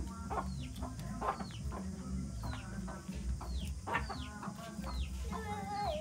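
Chickens calling: a run of short, high calls that fall in pitch, about one every half second, with clucking. Near the end a longer wavering call starts.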